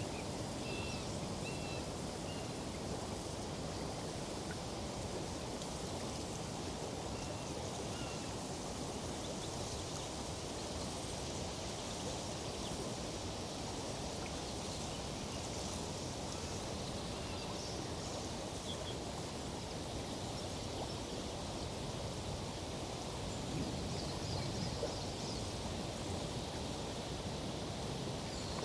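Steady outdoor ambience of a river flowing and tree foliage rustling in a summer breeze, with a few faint, scattered bird chirps.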